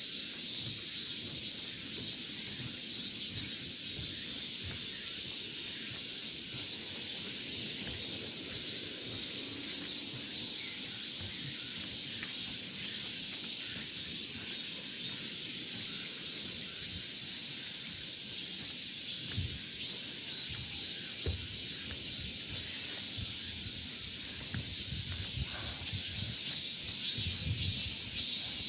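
Summer forest ambience: a steady, high-pitched drone of insects that never lets up.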